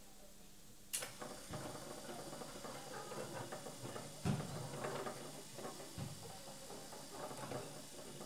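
Small electric gear motor of a model automatic sliding gate running as the gate slides closed along its track. It makes a light, uneven mechanical rattle that starts with a sharp click about a second in, with a louder knock about four seconds in.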